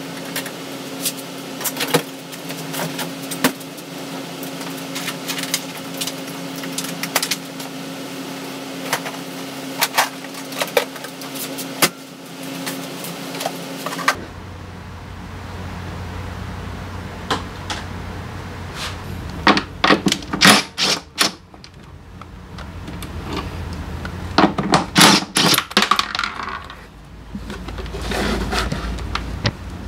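Scattered metallic clicks and clinks of hand tools and parts being handled while changing the spark plug on a Honda SCR100 scooter, in quick clusters in the second half. A steady low hum lies under the first half, and the background switches to a low rumble about halfway through.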